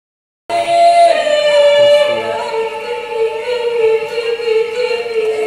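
Wordless female singing voice, layered into several overlapping long held notes that glide slowly in pitch, starting abruptly about half a second in.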